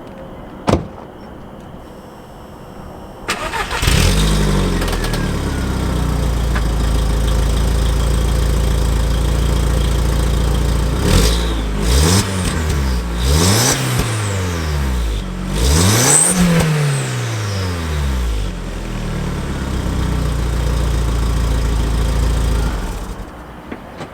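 2002 Volkswagen Golf 337's turbocharged 1.8-litre four-cylinder, through a 3-inch turbo-back exhaust, starts about three seconds in and idles. It is revved several times in quick succession around the middle, then settles back to idle and stops shortly before the end. A single sharp knock comes just under a second in, before the start.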